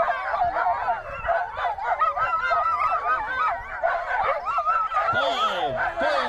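Sled dogs yelping, yipping and barking in a constant overlapping chorus, the eager clamour of a team held at the start line during the countdown.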